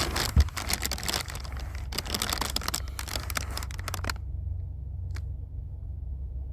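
Dense crackling, crinkling noise, like something rubbed or handled close to the microphone, that cuts off abruptly about four seconds in, over a steady low rumble.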